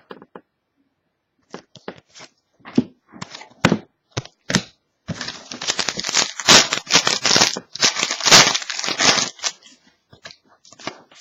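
Scattered light clicks and taps of trading cards being handled. About five seconds in, a card pack wrapper is torn open and crinkled, a dense rustling that lasts about four seconds and is the loudest sound.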